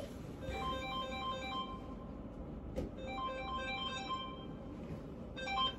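Mobile phone ringtone playing a short electronic tune, which plays twice with a pause between and starts again near the end.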